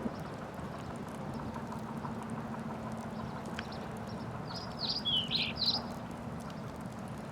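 Wood fire burning with a steady hiss and faint scattered crackles, under a low steady hum. About five seconds in, a short run of bird chirps.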